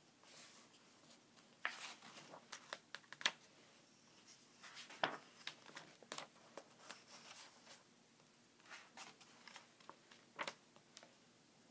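Pages of a thick comic-strip book being turned by hand: faint, scattered paper rustles and flicks, several times over.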